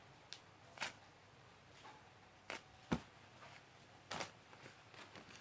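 Faint handling noises from a squishy toy being turned over in the hands: about five short soft clicks and rustles, spread a second or so apart.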